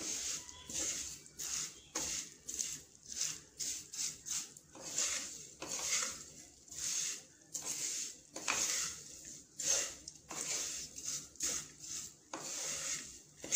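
A wooden spatula stirring and scraping vermicelli against a nonstick pan in repeated strokes, about one or two a second. The vermicelli is being dry-roasted in ghee on a low flame until it turns dark brown.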